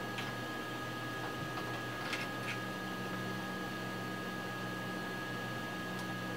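A few faint clicks of a screwdriver bit turning screws in a power supply's metal case, over a steady electrical hum.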